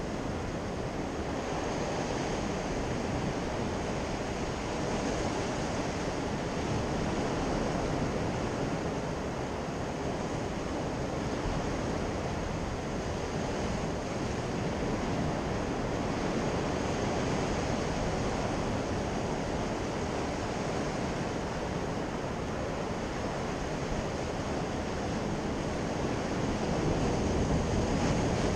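Sea surf washing and breaking against rocks, a steady rushing that swells a little near the end, with wind buffeting the microphone.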